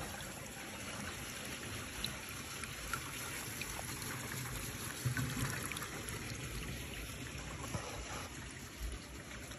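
Water running along a rain gutter in a steady trickling stream, now flowing freely after a leaf clog was pulled out.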